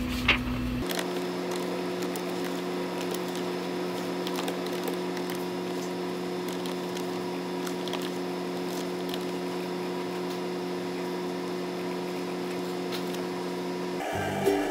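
A steady low electrical hum with several fixed tones and a few faint clicks: indoor room tone.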